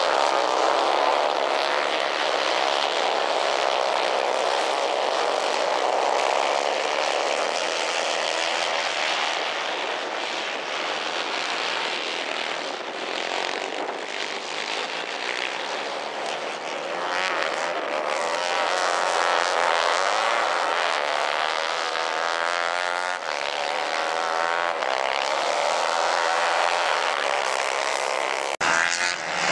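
Several 150 cc Kayak-class racing kart engines buzzing together, their pitches rising and falling as the karts accelerate and lift off through the corners. There is a short break in the sound near the end.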